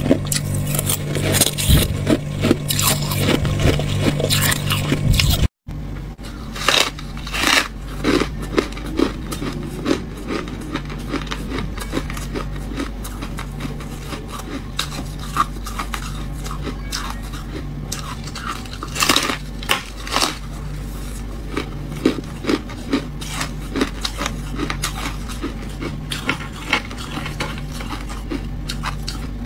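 A metal spoon scraping and crunching through loose, snowy freezer frost for the first few seconds. Then a slab of refrozen freezer frost is bitten and chewed, giving a few loud crisp crunches with quieter crunchy chewing between them.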